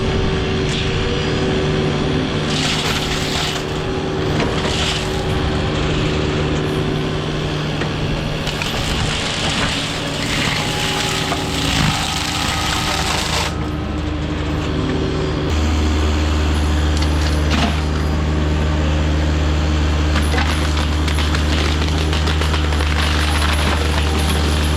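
Diesel engine of a heavy machine with a forestry mulching head running steadily, with several stretches of rough grinding as the head chews into wood. About two-thirds of the way through, a deep heavy drone comes in and holds.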